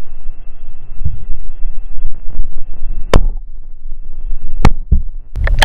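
Muffled low rumble and thumping of a GoPro Hero 3 in its waterproof housing held underwater, with a few sharp clicks about three and four and a half seconds in. Just before the end a sudden loud rush of splashing water sets in as the camera comes up out of the water.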